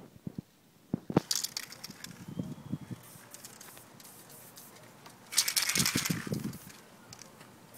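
Footsteps crunching on dry ground, with a few sharp knocks near the start; a crunchy burst about a second in and a louder one lasting about a second around five and a half seconds in.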